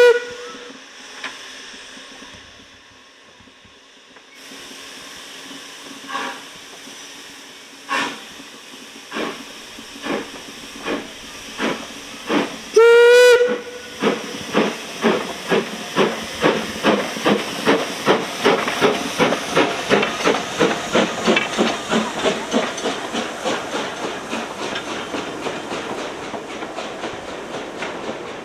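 Narrow-gauge steam tank locomotive pulling away: the end of a whistle blast and a hiss of steam, then single exhaust beats about a second apart. A second short whistle comes about 13 seconds in. It is followed by quick, even exhaust beats, about two to three a second, that slowly fade as the train moves off.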